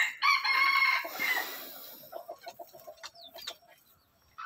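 A chicken gives one loud call lasting about a second, followed by softer clucking. Straw rustles under a hand in the nest.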